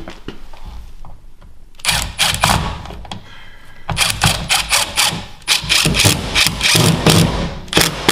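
Cordless impact driver driving screws through the fireplace's metal mounting brackets, in two runs of rapid hammering: a short one about two seconds in and a longer one from about four seconds until near the end.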